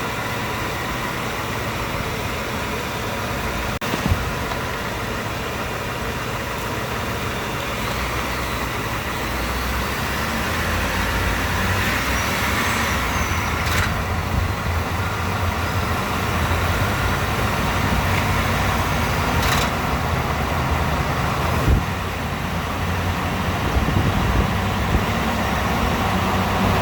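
2018 Ford F-150's 5.0 V8 running under load while driving, growing louder partway through. A ratcheting sound comes each time the foot lifts off the throttle, heard as a few sharp clicks. The owner reports this as a fault that Ford has not been able to diagnose.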